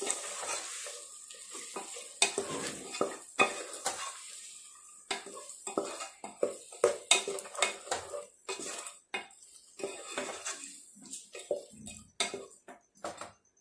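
Wooden spatula stirring and scraping chicken masala in a nonstick pot, with irregular knocks and scrapes against the pan, over a light sizzle of frying that is strongest in the first couple of seconds.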